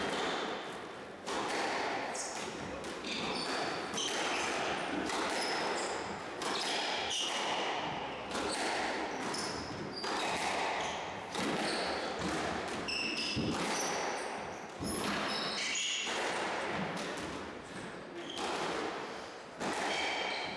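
Squash rally: the ball smacking off the racket strings and the court walls about once a second, each hit echoing in the court, with trainers squeaking on the wooden floor between shots.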